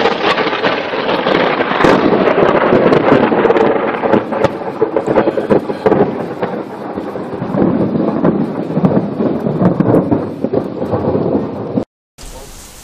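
Loud thunder: a sudden crack, then a crackling rumble that rolls on for about twelve seconds in two swells before cutting off. Fainter steady rain follows briefly near the end.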